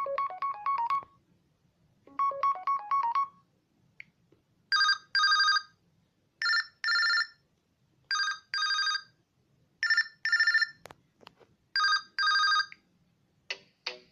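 LG K40S smartphone ringtones. A quick rising run of electronic notes plays twice, then a trilled double ring repeats about five times, every second and a half or so. A few short clicks come near the end.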